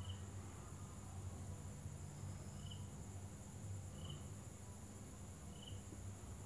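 Faint steady hum and hiss, with four short, high chirps spaced about a second and a half apart.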